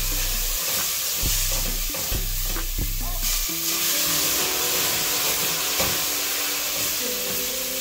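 Bourbon sizzling and steaming hard as it hits hot oil in a stainless pot to deglaze it, stirred with a silicone spatula. A steady, loud hiss that eases slightly near the end.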